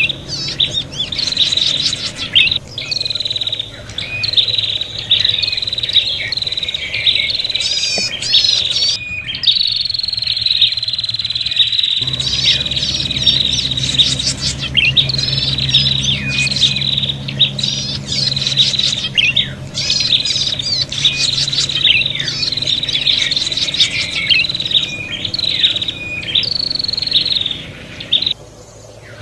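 Prenjak birds calling in fast, agitated chirps repeated almost without a break, with one longer drawn-out high note about a third of the way in: the noisy fighting calls played as a lure to draw in wild prenjak.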